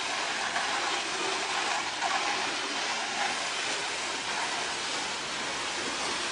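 Steady hiss of water spraying from a garden sprayer onto wooden deck boards, rinsing off the wood brightener.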